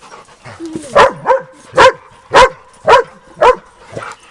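A dog barking repeatedly, about seven sharp barks roughly half a second apart, starting about a second in.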